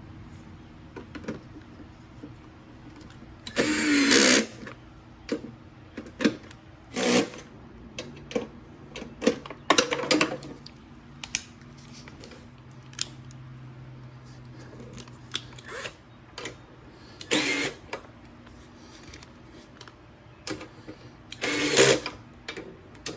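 Tool and part handling while the fuel tank is bolted onto the Briggs & Stratton 190cc engine block: scattered metallic clicks and knocks, with a few louder one-second bursts of rattling or driving.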